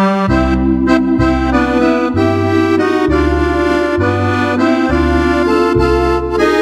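Roland FR-4x digital accordion playing a tune, with held chords and melody above and a left-hand bass note that changes about once a second. It starts suddenly at the beginning.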